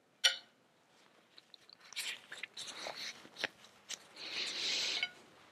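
Faint clicks and scrapes of a metal spoon against a ceramic dish, with soft chewing, as spoonfuls of canjica are tasted. A sharp click comes just after the start, and a longer scrape about a second before the end.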